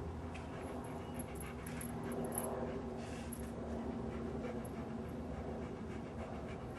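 A dog panting steadily, with a faint low hum behind it.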